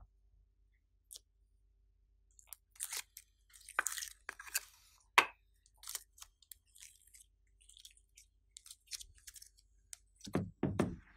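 Slime being worked and mixed by hand: irregular sticky crackles, clicks and squelches, with a few dull thuds near the end.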